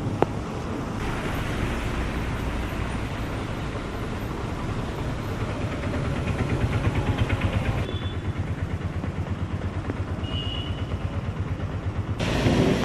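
Rain and wind with vehicles on waterlogged roads, made of several short clips cut together so the sound changes abruptly a few times. A sharp click comes just after the start, and there is a louder surge near the end.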